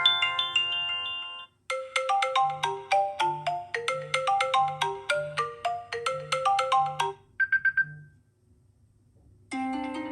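iPhone built-in iOS 16 ringtones playing one after another. A melody of short mallet-like notes over a soft low pulse plays for about five seconds, a brief high chime follows, then after a short pause a new harp-like tune begins near the end.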